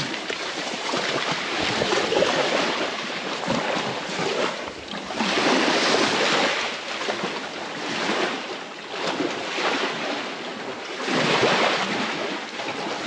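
Small waves washing onto a sandy beach, the hiss of the water swelling and fading every few seconds.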